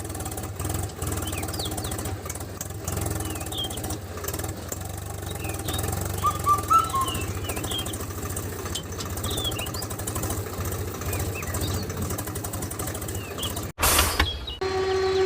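A DIY mini tractor's small engine running steadily with a fast, even low pulse, while birds chirp over it. Near the end the sound cuts off, a brief loud burst follows, and then a steady held tone begins.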